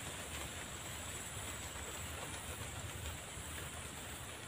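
Faint, steady outdoor background noise at a swamp pond: an even hiss with a constant high-pitched band, and no distinct event.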